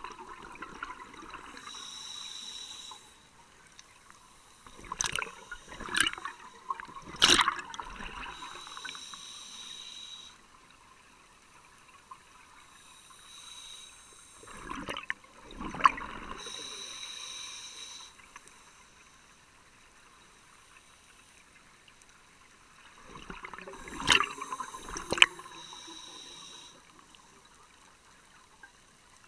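Scuba diver breathing through a regulator, heard underwater: a hissing inhale alternates with a bubbling, crackling exhale, three breaths roughly every nine seconds.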